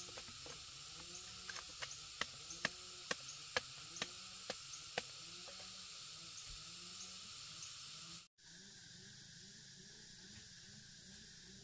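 Machete blade knocking against a tree fern (coolie fern) trunk while it is trimmed, with light strokes about two a second that stop about five seconds in. Underneath is a steady high hiss.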